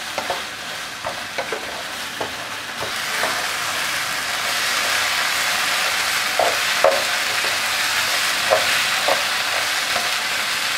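Spinach and chicken masala sizzling on high heat in a nonstick pan as its last moisture cooks off, with a wooden spatula stirring and scraping the pan now and then. The sizzle grows louder about three seconds in.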